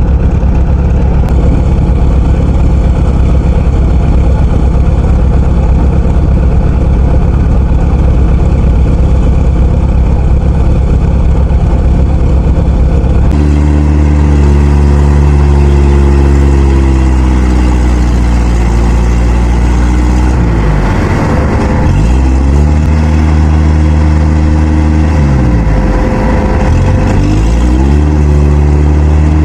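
Farm diesel engine running hard. About halfway through its sound changes, and twice its pitch sags and climbs back, as it labours under load towing a rice harvester stuck in mud.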